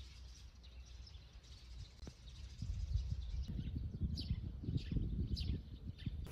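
Small birds chirping, several short high calls in the second half, over wind buffeting the microphone. The wind rumble strengthens about halfway through and is the loudest sound.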